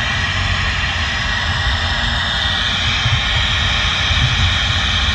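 Steady road and engine noise inside a moving vehicle's cab, a constant low rumble with a hiss over it.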